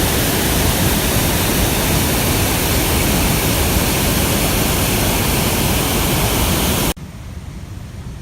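Typhoon-swollen river in flood, its torrent of water rushing loudly and steadily. About seven seconds in, the sound cuts abruptly to a much quieter, deeper rumble of water.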